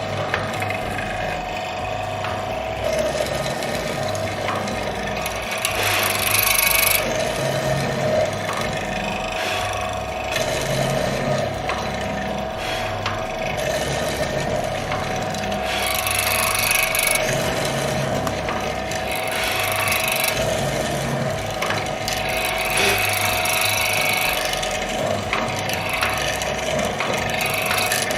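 SIP bench mortiser's 1 hp motor running with a steady hum, with repeated bursts of grinding and rasping every few seconds as the hollow chisel and its auger bit are plunged into wood.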